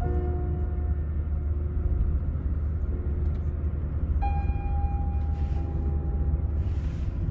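Car cabin road noise: a steady low rumble from the moving car, with two faint held high tones, one at the start and one about four seconds in.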